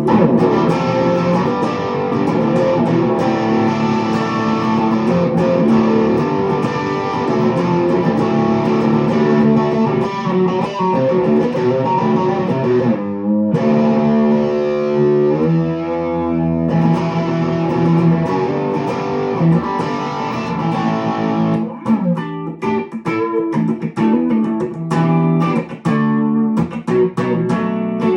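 Schecter Sun Valley Super Shredder electric guitar played through a Texwatt tube-hybrid amp and 1x12 cabinet: sustained chords and riffs, a brief break about halfway, then choppier, sharply picked passages in the last third.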